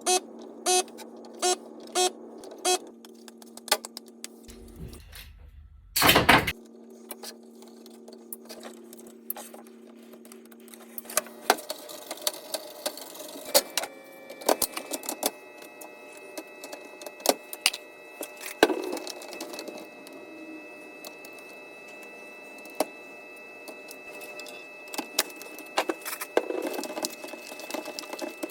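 Clicks, taps and rattles of small plastic and metal parts being handled while a 2006 Hummer H2 instrument cluster is taken apart for rebuilding, over a faint steady hum. Five evenly spaced sharp clicks come in the first few seconds, and a louder short clatter comes about six seconds in.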